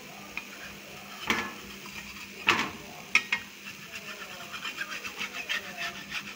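Spatula knocking and scraping on a dosa pan: a few separate sharp taps, then a quicker run of light ticks in the second half as it works lightly around the cooking dosa so it will lift off easily.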